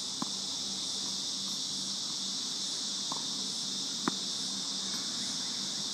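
Steady high-pitched drone of insects, with two short sharp knocks from a tennis ball being struck: a faint one just after the start and a louder one about four seconds in.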